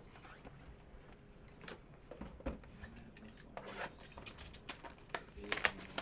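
Sealed cardboard trading-card hobby boxes being picked up and shifted on a table, with rustling of their plastic wrap and irregular sharp taps and clicks, the loudest near the end.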